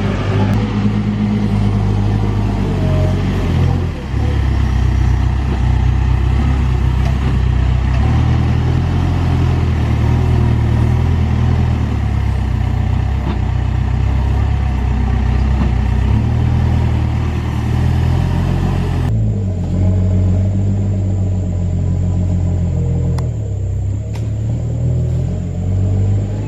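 Diesel engine of a Case 580 Super N backhoe loader running as a loud, steady drone, its pitch stepping up and down several times. About two-thirds of the way through, the higher hiss drops away abruptly while the engine drone carries on.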